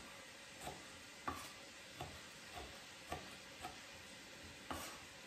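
Kitchen knife tapping faintly on a wooden cutting board while dicing tomatoes, about eight slightly uneven taps, roughly two a second.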